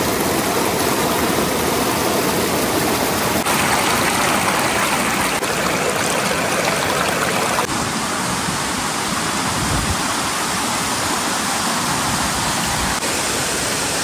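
Roar of Hebbe Falls: a loud, steady rush of falling water. Its tone changes abruptly a few times.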